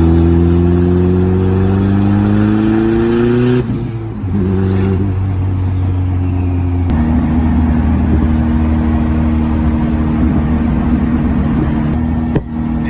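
Focus ST engine with a Precision 6266 turbo and a hood-exit dump pipe, heard from inside the car under hard acceleration. The engine note climbs steadily with a high whistle rising alongside it, then drops sharply at a gear change about three and a half seconds in. It pulls briefly again and settles into a steady cruise from about seven seconds on.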